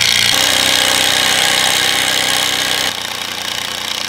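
Cordless impact driver hammering a long wood screw into pallet boards, running continuously; it eases a little about three seconds in.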